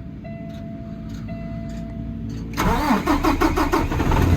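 Semi truck's diesel engine cranking and catching about two and a half seconds in, then running and settling into a cold idle. Before it starts, a thin steady warning tone sounds and breaks off twice.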